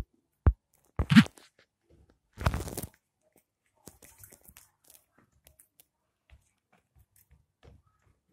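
A few loud sharp thumps and a brief crunchy rustle in the first three seconds, then faint scattered soft taps and scuffs as kittens scamper and wrestle on a rug.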